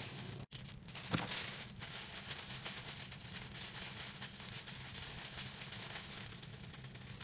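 Plastic-gloved hands working hair dye through wet hair: soft wet squishing with a fine crackle of the gloves, over a steady background hiss. The sound drops out briefly about half a second in, and a louder rustle follows about a second in.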